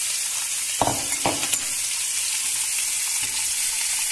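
Pieces of moray eel sizzling steadily in hot oil in a frying pan, with two light knocks about a second in.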